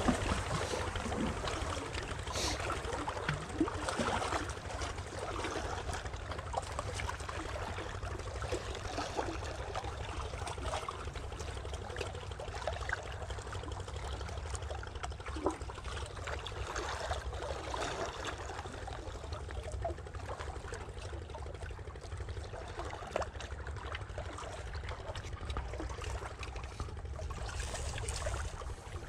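Water lapping and trickling against the hull of a small fishing boat, with many small splashy ticks over a steady low rumble.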